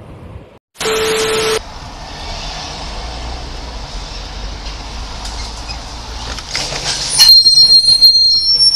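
Road rumble of a car driving along behind a heavy truck, then about seven seconds in a loud squeal of brakes with several high steady tones. Near the start, a brief loud burst with a steady tone lasts under a second.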